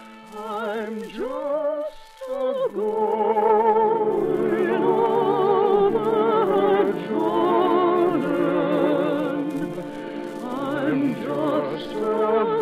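Orchestral music: a melody with strong vibrato over held chords, with a short break about two seconds in.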